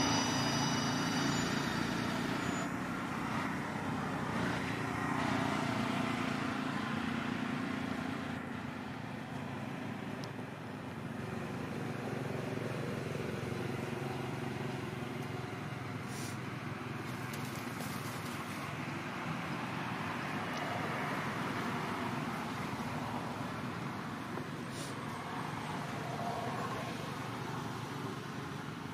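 Steady background noise of road traffic, with vehicle engines running and passing.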